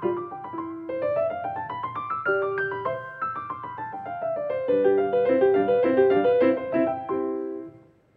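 Grand piano played solo: fast rising and falling runs of notes, then louder repeated chords, ending in a final chord that dies away near the end.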